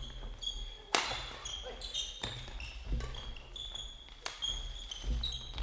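Badminton doubles rally: rackets striking the shuttlecock about once a second, five sharp hits, with short high squeaks of players' shoes on the court floor between them.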